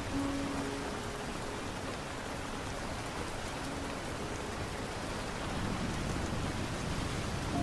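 Steady rain falling, an even hiss of drops throughout. A few faint, brief held tones sit under it.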